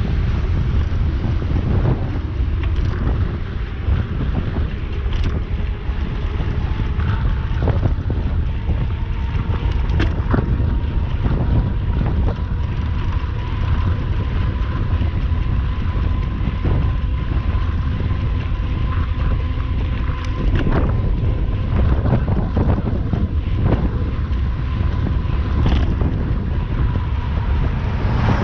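Strong wind buffeting the microphone as a continuous low rumble, with scattered sharp clicks and knocks and a faint steady whine underneath.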